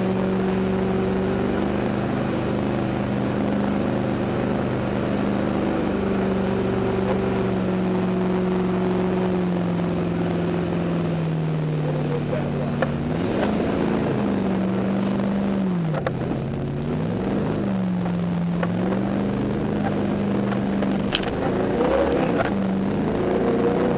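Jet boat's engine running steadily at speed over the rush of water. About halfway through, its pitch dips and climbs back twice as the boat runs into the rapids.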